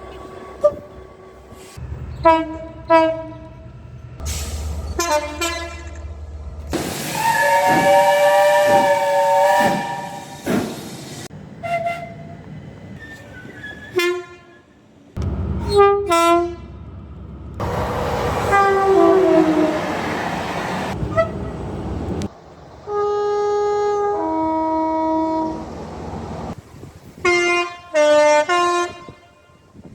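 A series of British train horns sounding: short toots and longer blasts, several of them two-tone, some over the rumble of a passing train. In one, the horn falls in pitch as the train goes by, and near the end a horn sounds a high note then a lower one.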